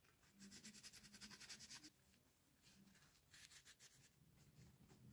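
Faint, quick scratching strokes of a small metal hand tool scraping a steel plier half, a run of rapid strokes lasting about a second and a half, then a shorter run about three and a half seconds in.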